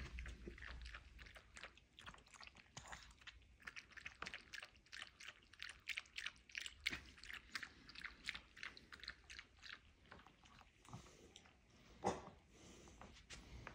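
Chihuahua lapping water from a stainless steel bowl: a faint, quick run of wet laps, several a second.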